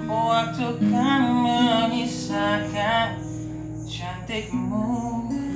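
A man singing held, wavering notes over a strummed acoustic guitar. The voice fades out about three seconds in, leaving the guitar chords.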